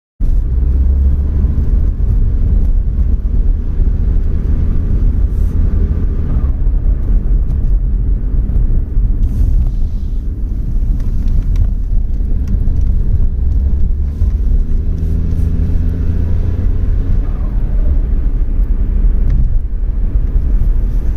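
Nissan Otti turbocharged kei car engine running with a steady low rumble, with faint pitch rises and falls and a subdued turbo flutter on throttle lift-off.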